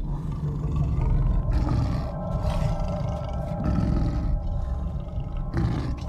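Big-cat growling, low and continuous, as the voice of a saber-tooth cat.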